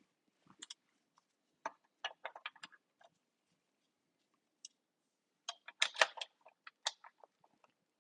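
Plastic parts of a Nerf Rival Hera blaster clicking and knocking as it is being taken apart, in scattered single taps and quick clusters, the busiest run of clicks about five to seven seconds in.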